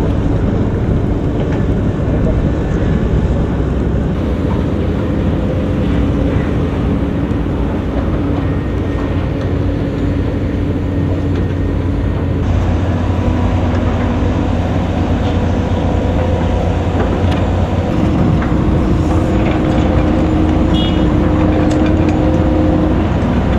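Diesel engines of heavy earthmoving machines (excavators and a road roller) running steadily, their pitch rising and falling as they work, with a few knocks in the last several seconds.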